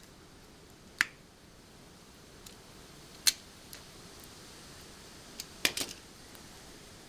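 Hand tools clicking and tapping while refitting a quad bike's front wheel hub: one sharp click about a second in, another a couple of seconds later, and a quick cluster of clicks near the end.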